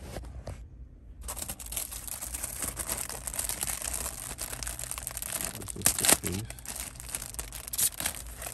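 Clear plastic packaging bag crinkling and crackling as a carbon-fibre dash trim piece is pulled out of it. It starts about a second in and has a few louder crackles around six seconds in and again near the end.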